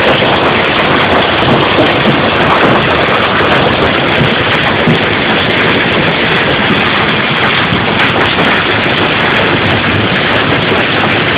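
Heavy storm rain pouring down and pelting the ground, a loud, dense, steady hiss.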